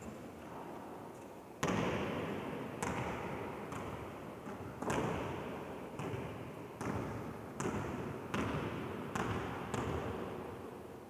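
A basketball bouncing on a sports-hall floor, about ten bounces roughly a second apart. Each one rings out with the long echo of the large, empty hall.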